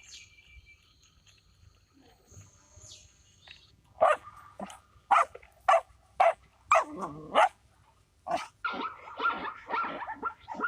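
A dog barking in sharp, loud barks about every half second. Later it breaks into a faster run of yaps.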